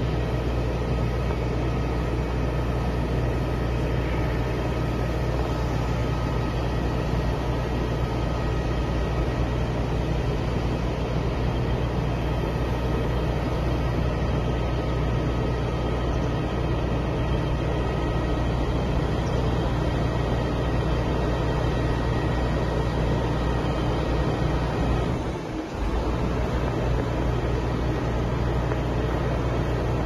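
Diesel engine of a truck-mounted concrete boom pump running steadily at working speed, driving the hydraulics that move the boom, with a faint steady whine above the low drone. The sound dips briefly about 25 seconds in.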